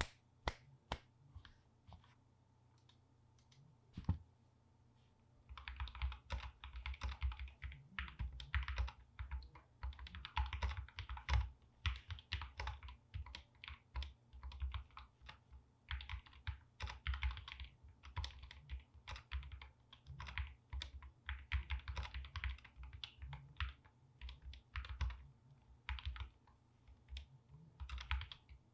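Mechanical keyboard with lubed Gateron Optical Black linear switches being typed on. A few single keystrokes come first, then from about five seconds in there are fast runs of typing with short pauses between them.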